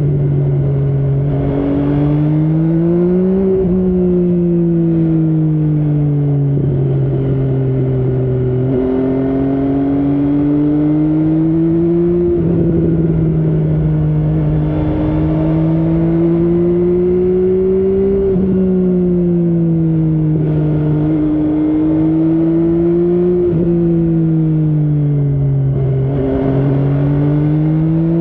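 MV Agusta Brutale 800's inline three-cylinder engine running under way, its pitch climbing and falling with the throttle and stepping sharply several times as gears are changed.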